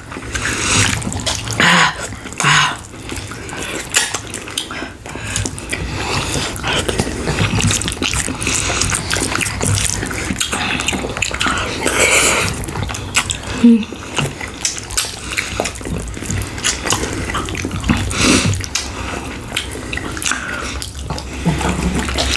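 Close-miked eating sounds: wet chewing and mouth smacking of ribs in sauce and rice, full of quick clicks and crackles.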